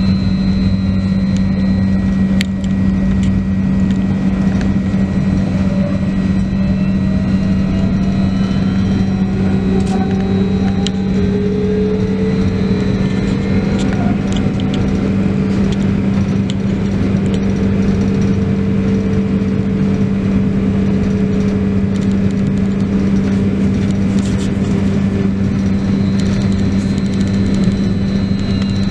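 Trolleybus running, heard on board: a steady electrical hum under constant road noise, with the motor's whine gliding up and down in pitch as it speeds up and slows.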